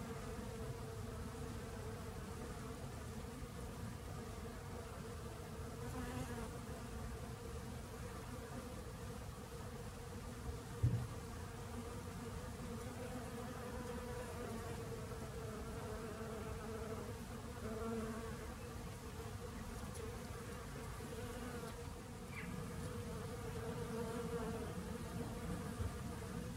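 Honeybees buzzing steadily as they forage on ivy blossom, a constant wingbeat hum. A brief thump about eleven seconds in.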